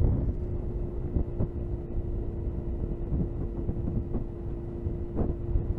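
Suzuki GSX-R sportbike engine running at a steady pitch while underway, over a rush of wind and road noise.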